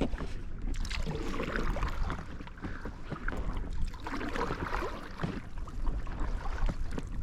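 Paddle splashing and water sloshing around an inflatable kayak, with irregular drips and knocks and wind rumbling on the microphone.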